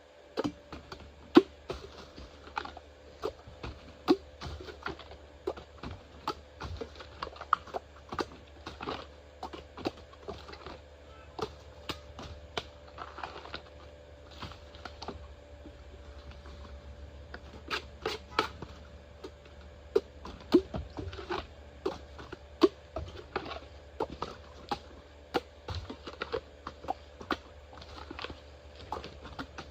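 Bamboo being chopped and cut with a blade: a long run of irregular sharp knocks and clicks, some much louder than others.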